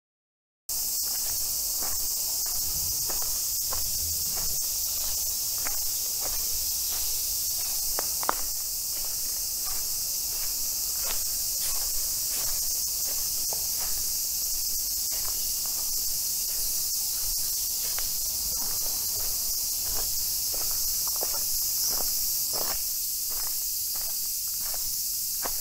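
A steady, high-pitched chorus of buzzing insects, starting abruptly about half a second in, with footsteps crunching on a dry leaf-covered path at about two steps a second.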